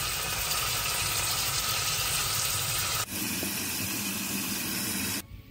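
Steady sizzling of food cooking on the stovetop. It changes abruptly about three seconds in and drops away just before the end.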